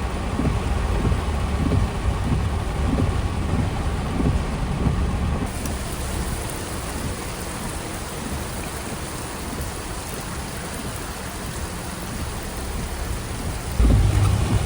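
Typhoon rain hissing steadily while gusts of wind buffet the microphone in low rumbles. About five seconds in, the rumble drops away and the rain hiss carries on more evenly; strong gusts return near the end.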